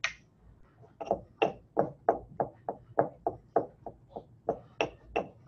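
A mixing utensil knocking rapidly and rhythmically against a hard vessel while stirring an emulsion, about three sharp clinks a second. It starts about a second in, after a single clink.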